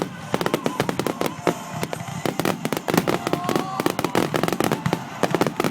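Fireworks going off in a dense, rapid barrage of bangs and crackles, many per second.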